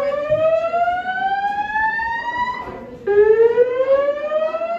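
School fire alarm sounding a slow-whoop evacuation tone: a pitch that rises steadily for about three and a half seconds, breaks off, and starts its climb again about three seconds in.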